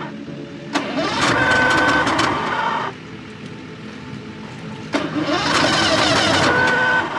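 Two-stroke Yamaha outboard motor being cranked by its electric starter in two bursts of about two seconds each, each starting with a click and carrying a steady whine, with the engine not firing up between tries.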